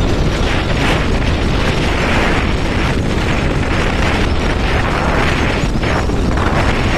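Wind buffeting the microphone while moving along a road at riding speed: a loud, steady rush of noise.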